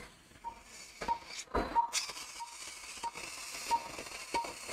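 Operating-room patient monitor beeping with the pulse: short beeps at one steady pitch, evenly spaced about three every two seconds, with a few soft clicks in between.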